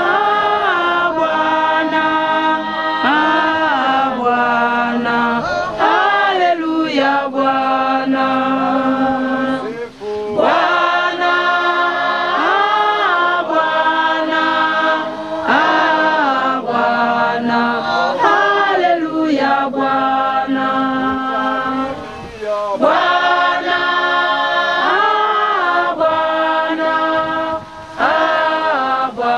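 A large group singing a Swahili hymn together, voices in unison, in repeating phrases of held and sliding notes.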